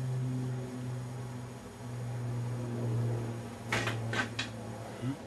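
A low mechanical hum that wavers in level, with three sharp clicks in quick succession near the end.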